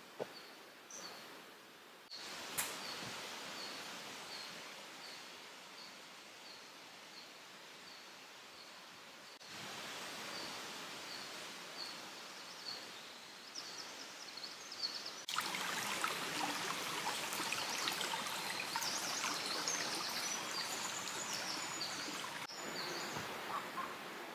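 Forest lakeside ambience: a steady hiss of background noise, with a bird repeating a short high note about twice a second through the first half and a single sharp click early on. In the second half several birds chirp busily over a louder hiss.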